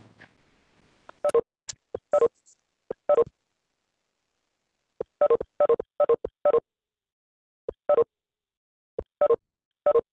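Cisco Webex meeting notification tones: a string of short electronic beeps, singly or in quick pairs at uneven gaps, as participants leave the call.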